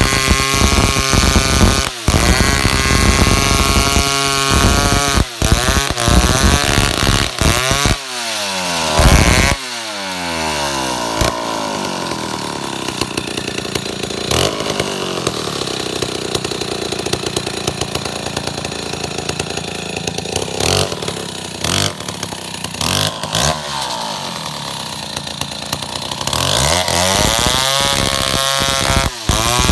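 Stihl chainsaw sawing through a eucalyptus log at full throttle, with short dips in speed. About eight seconds in it winds down and runs slower and quieter for a long stretch, then revs up again near the end.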